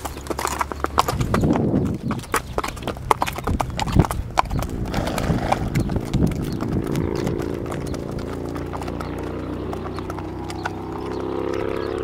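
Several horses walking on a paved lane, their shod hooves clip-clopping in an uneven overlapping patter that thins out as they move away. A steady low hum joins in about halfway through.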